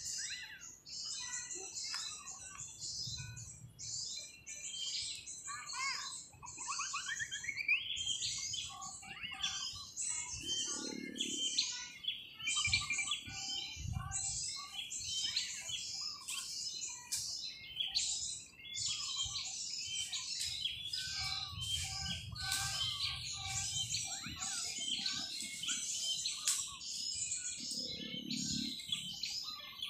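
White-eyes (pleci) twittering: a continuous stream of high, rapid chirps and short trills. A couple of dull low bumps come about a third of the way in and near the end.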